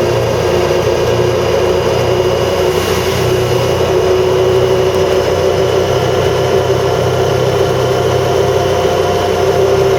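Four-wheeler (ATV) engine running steadily while being ridden.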